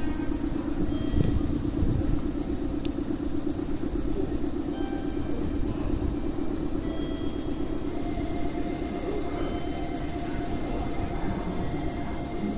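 A train running on a nearby track out of sight: a steady rumble with a fast fine pulsing, and faint steady high tones coming in about halfway through.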